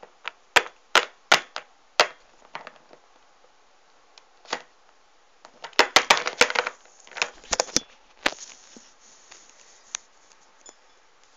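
Hard plastic toy figurines clacking and tapping on a tabletop as they are handled and set down: a run of sharp clicks in the first two seconds, a dense cluster about six seconds in, then a few more clicks.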